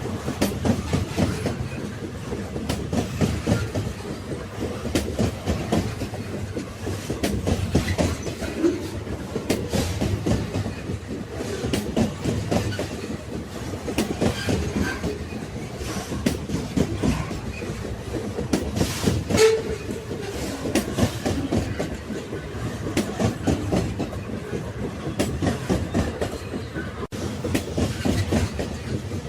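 Railway carriages rolling along the track: a steady low rumble with the rapid clickety-clack of wheels running over the rails. About two-thirds of the way through comes one sharper metallic click with a brief ring.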